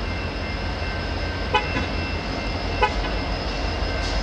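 Alaska Railroad diesel locomotive pulling a passenger train slowly toward the listener: a steady low rumble with constant high tones over it, and two short pitched blips just over a second apart.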